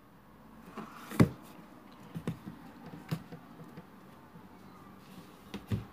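Books being handled on a wooden table: a sharp knock about a second in, the loudest sound, then a few lighter knocks and handling noise as books are set down and picked up.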